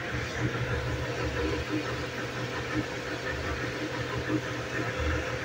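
Steady low mechanical hum with a hiss and a faint constant tone, running on without a break.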